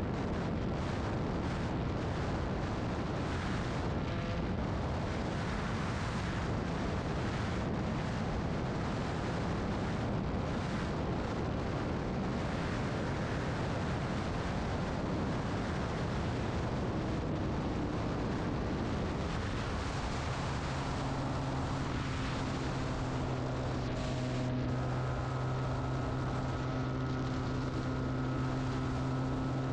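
Heavy wind noise on the microphone from a motorcycle at about 155–160 km/h, with the Benelli TNT 300's parallel-twin engine, fitted with an SC Project exhaust, running underneath. About two-thirds of the way in, the engine settles into a steady, even drone that stands out through the wind.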